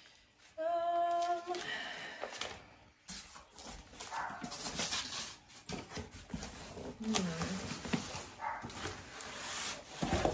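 Cardboard box and paper rustling and scraping as the box is unpacked and an inner box lifted out. About half a second in, a dog gives one steady whine lasting about a second.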